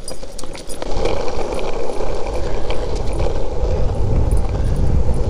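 Longboard wheels rolling fast on asphalt: a steady rumble with wind buffeting the microphone, growing louder about a second in.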